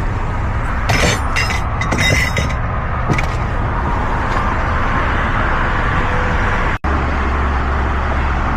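Steady road traffic noise, vehicles' engines and tyres rumbling, with a few short clinks about one and two seconds in. The sound cuts out for an instant near the end, then the low rumble carries on.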